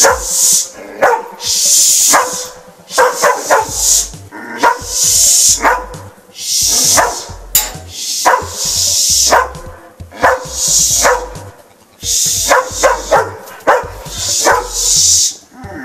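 A dog barking over and over in irregular volleys, with music playing underneath.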